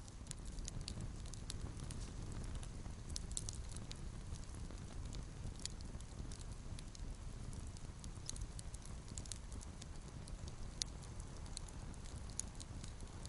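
Wood campfire of dead sticks and branches burning, with irregular sharp crackles and pops over a low steady rumble; one pop about two-thirds of the way through stands out.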